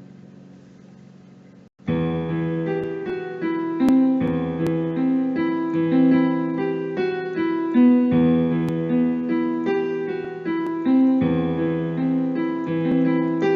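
Casio CTK-6000 keyboard playing a piano-voiced tune with bass notes under chords and a melody. A held chord fades, the sound cuts out briefly just under two seconds in, and then a new, louder passage starts and carries on.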